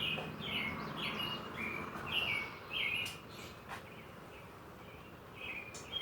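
A bird chirping over and over in short notes, about two a second, falling silent a little past halfway and starting again near the end. A single click comes a little past the middle.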